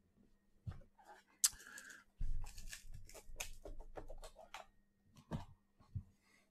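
Cardboard packaging being handled: a National Treasures Baseball hobby box opened and its white inner card box pulled out and opened. It makes a quick run of clicks, scrapes and rustles, then two soft knocks near the end.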